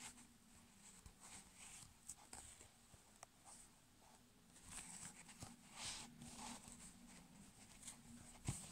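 Faint, scratchy rustling of yarn being worked with a crochet hook and handled by fingers, with small clicks and a sharper knock near the end, over a low steady hum.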